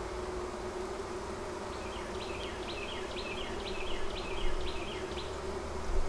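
A honeybee colony buzzing in a steady hum over its opened hive. From about two seconds in, a run of short, high chirps joins it for a few seconds.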